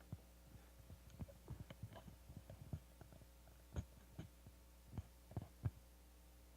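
Scattered soft knocks and thumps at an irregular pace over a faint steady electrical hum; the loudest come a little before the middle and near the end.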